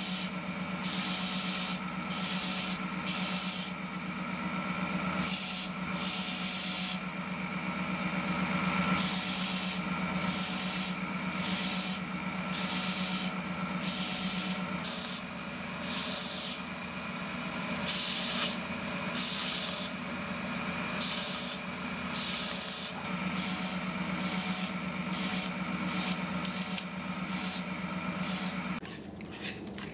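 Stationary belt sander running with a steady motor hum while a wooden kuksa cup is pressed against the belt in repeated short passes, each pass a burst of grinding hiss about every second or so. The hum stops shortly before the end.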